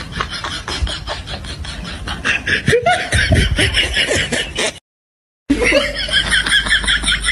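A person laughing in quick repeated bursts, growing stronger partway through; the sound drops out completely for about half a second, then the laughter resumes.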